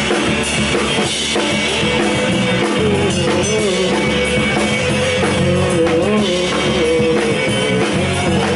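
Live rock band playing an instrumental passage on drum kit, bass and electric guitars, with a held, wavering melody line on top.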